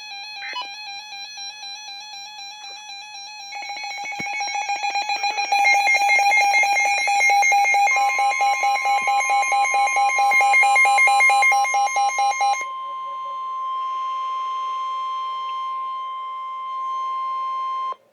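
Electronic emergency alert tones: a warbling alarm, joined about three and a half seconds in by a fast pulsing beep that stops about twelve seconds in. From about eight seconds a steady single-pitched weather radio warning alert tone sounds, then cuts off near the end, announcing a National Weather Service warning broadcast.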